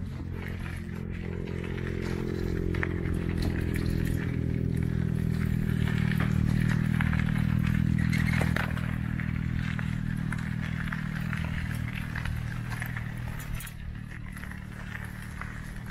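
A motor vehicle's engine running at a steady pitch, growing louder to a peak about eight seconds in and then fading, with light clattering throughout.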